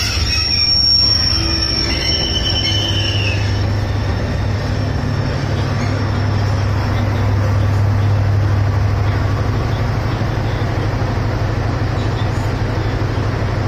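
Diesel-hauled passenger coaches rolling in and braking at a station platform: high-pitched brake and wheel squeal in the first few seconds that fades out, over a steady low diesel drone from the train.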